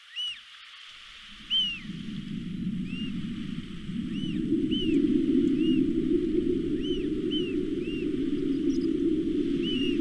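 American oystercatcher giving about a dozen short, loud piping calls at irregular intervals, each note quickly rising and falling in pitch. A low steady rushing noise comes in about a second in and grows louder partway through.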